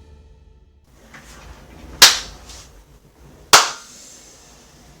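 Two sharp cracks about a second and a half apart, each trailing off briefly.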